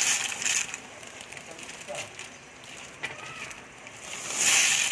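Dry macaroni being tipped into a pot of boiling broth and stirred: two loud bursts of rushing, rattling noise, one at the start and one near the end, with a lower steady noise between.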